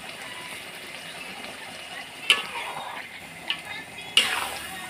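Duck pieces sizzling and simmering in coconut milk in a wok, a steady low sizzle, with a utensil clinking sharply against the wok twice midway and a louder scrape near the end.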